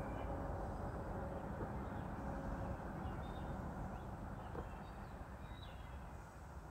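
Low, distant rumble of two Norfolk Southern diesel locomotives working hard with a heavy rock train, easing slightly in loudness, with a few short bird chirps over it.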